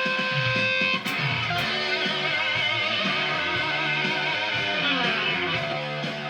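Fuzzed electric guitar (Gibson Les Paul through a Noise Therapy FX Le Revenant fuzz pedal into a Fender Hot Rod Deluxe amp) playing sustained notes. About a second in the held note changes, the pitch then wavers, and the sound begins to fade near the end.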